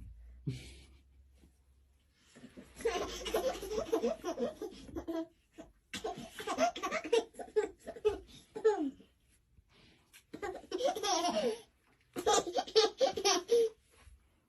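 A young child laughing hard in four bouts of quick, breathy belly laughs, with short pauses between them.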